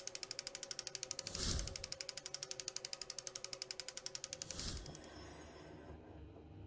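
Turning-gears sound effect: rapid, even ratchet-like clicking, about a dozen clicks a second, swelling twice, once about a second and a half in and again near four and a half seconds. The clicking stops about five seconds in.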